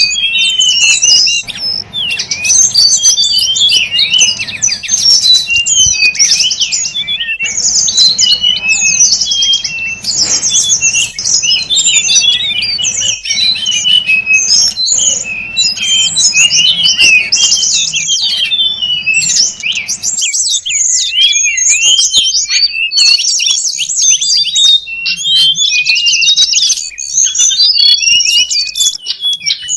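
Recorded song of the tledekan gunung, an Indonesian wild songbird, played as a trapping lure: dense, fast high chirps and trills with almost no pause. About twenty seconds in, the low background hum under the calls drops away.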